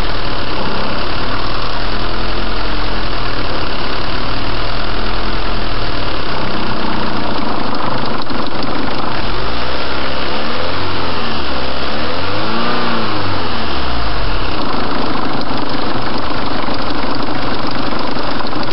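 Car engine idling, loud and close, with the throttle blipped several times so the revs rise and fall back; the biggest blips come a little past the middle.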